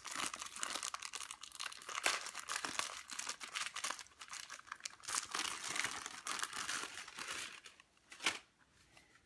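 Clear plastic wrapping crinkling and tearing as it is pulled off a small cable box by hand, a dense crackle for most of the stretch. A single sharp click near the end.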